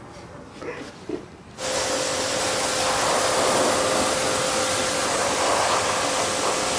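A pressure washer spraying down a racing bicycle: a steady hiss of spray over a constant motor hum, cutting in abruptly about a second and a half in.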